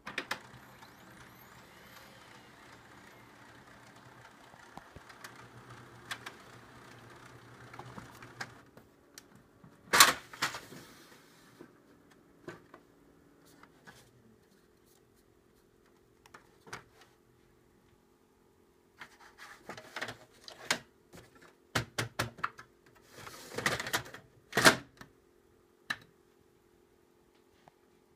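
A steady machine hum for about the first nine seconds. Then come the clunks, clicks and paper rustle of a Brother HL-L2300D laser printer's paper tray being handled and loaded with paper, with a loud clunk about ten seconds in and a run of knocks near the end.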